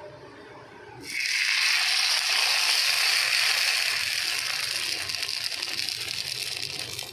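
Rice and urad dal batter sizzling as it hits the hot, oiled clay kadhai. A sudden hiss starts about a second in, then slowly dies down.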